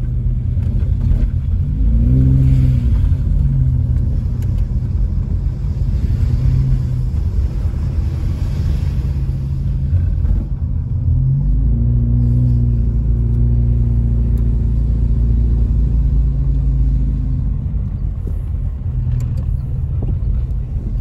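Car engine and road rumble heard from inside the cabin while driving, steady and low. The engine pitch rises as the car accelerates about two seconds in and again around eleven seconds.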